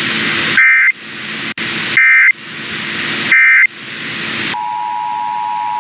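Three short warbling data bursts of an Emergency Alert System end-of-message code, each about a third of a second long and roughly a second and a half apart, over radio hiss. About four and a half seconds in, the steady two-tone EAS attention signal begins.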